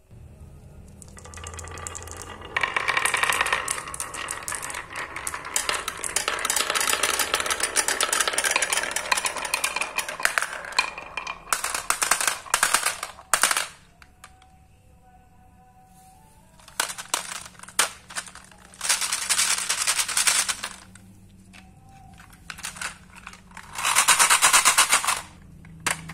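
Many marbles rolling down a carved wooden serpentine marble-run track and clattering into a plastic tray, a dense rapid rattle of clicks. After a lull midway there are shorter bursts, with a loud one near the end.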